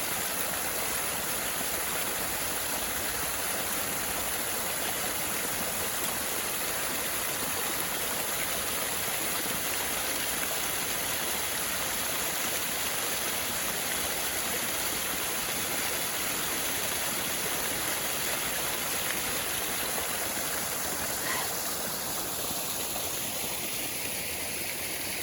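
Small garden waterfall running steadily, a constant rush of tumbling water; the brighter part of the rush thins a little near the end.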